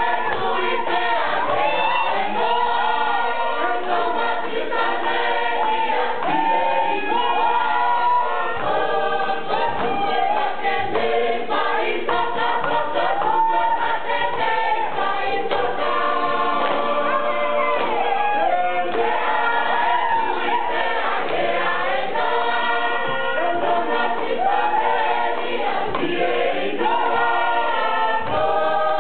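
Group of Tongan singers, men and women together, singing a song in chorus with many voices at once.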